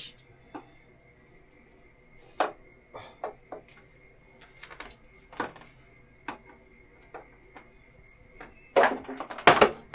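Scattered light clicks and knocks of hands handling the oven and its packaging, with a louder burst of clattering and rustling about nine seconds in. A faint steady high whine runs underneath.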